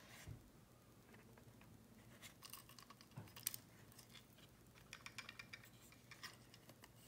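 Faint, scattered small clicks and scrapes of a Valentine One radar detector's opened plastic housing being handled and turned over in the hands.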